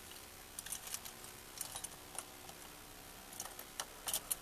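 Faint, scattered light clicks and jingles of a car key being fiddled with in the ignition, with the engine not running.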